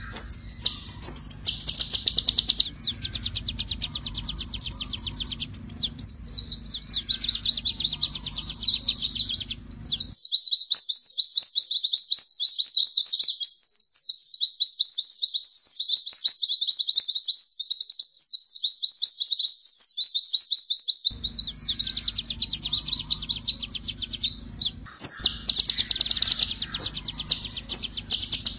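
Purple-throated sunbird (kolibri ninja) singing a long, unbroken, high-pitched song of rapid trills and quick sharp chips.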